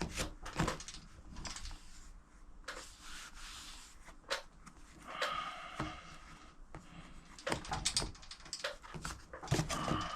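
Plastic dirt bike side panel being handled and cleaned: irregular knocks and clicks with short stretches of rubbing.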